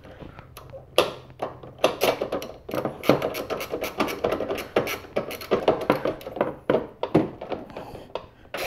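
Ratchet wrench with a socket on a long extension tightening the battery hold-down clamp nut, clicking in short bursts again and again.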